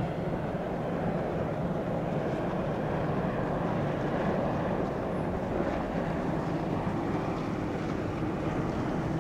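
Steady jet engine noise from an Airbus A330-300 airliner on final approach with its landing gear down.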